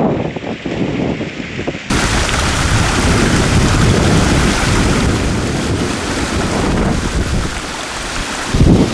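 Wind buffeting the microphone, then from about two seconds in a loud, steady roar of falling water from a waterfall; near the end the wind buffeting returns.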